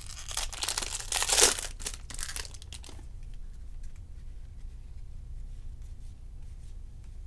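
Foil wrapper of a baseball card pack being torn open and crinkled, loudest about a second and a half in and stopping about three seconds in. After that, only faint soft ticks as the stack of cards is handled.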